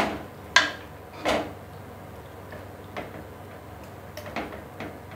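Metal ladle stirring thick curry in an aluminium pressure cooker, knocking against the pot: three sharp knocks in the first second and a half, then a few fainter ones.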